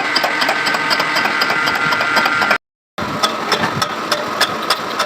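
Machinery running steadily with a fast, even ticking clatter, about six ticks a second, over a steady hum. The sound cuts out for a moment about two and a half seconds in, then carries on.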